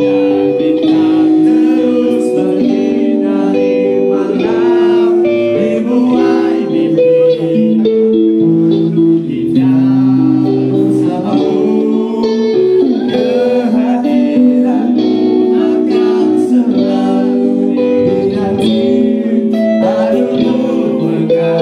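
Live band playing: a vocalist singing into a microphone over amplified electric guitar, with sustained, shifting guitar notes.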